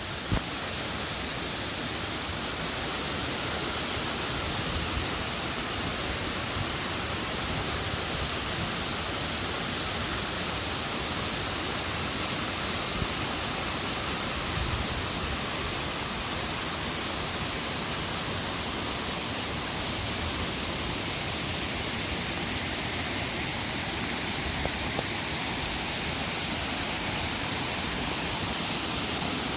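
Waterfall rushing, a steady, even hiss of falling water that does not change.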